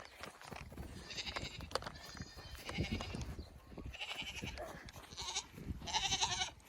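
Goats bleating: about five short, quavering calls one after another, the longest and loudest near the end.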